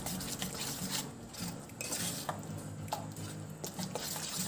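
Metal spoon stirring a thick wheat-flour and vegetable batter in a stainless steel bowl, with irregular clinks of the spoon against the bowl's side.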